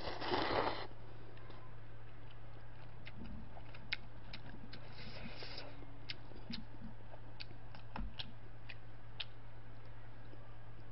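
A short slurp of black-bean instant noodles (Jjapaghetti) right at the start, then scattered small clicks and taps of wooden chopsticks working the noodles in a cup, mixed with chewing.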